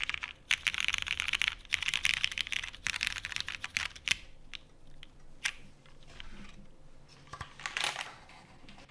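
Typing on a custom mechanical keyboard built with lubed Cherry MX Hyperglide Brown tactile switches on a polycarbonate plate in a Matrix 8xv2.0 Add case, with GMK keycaps. Fast continuous typing for about four seconds, then a few scattered single keystrokes and a short burst of keys near the end.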